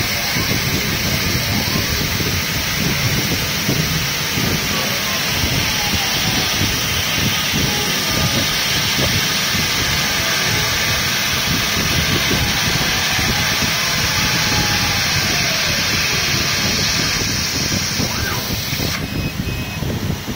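Laser cutting machine cutting plywood: a steady rushing hiss of air with a low hum, and faint motor whines that glide up and down in pitch as the head traces curved shapes. The high hiss drops away near the end.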